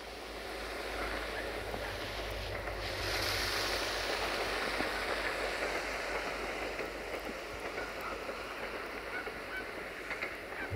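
A diesel multiple unit approaching in the distance: a steady low rumble under a wide rushing noise that swells up in the first second or so.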